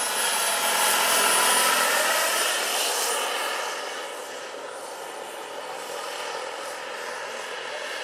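Small gas-turbine engine and rotor of a large radio-controlled Eurocopter EC-120 B Colibri scale helicopter in flight: a steady high whine over a rush of air, loudest a second or two in, then growing fainter from about three seconds on as it flies away.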